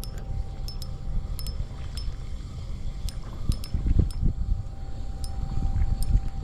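Wind buffeting the microphone in uneven gusts, stronger in the second half, with scattered light clicks and a faint steady tone underneath while a spinning reel is wound in.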